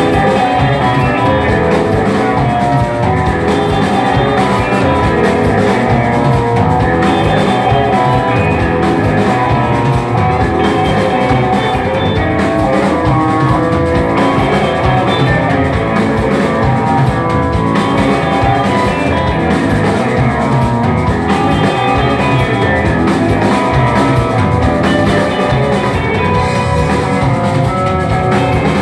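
Live rock band playing loudly and without a break: electric guitars over a drum kit.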